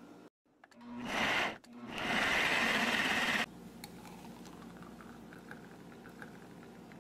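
Countertop blender motor running as it purées watermelon chunks with sugar, in two loud bursts: the first spins up, a brief pause, then a longer run of about a second and a half that cuts off suddenly. Then a much quieter stretch of faint small splashes as the thick juice is poured into a glass.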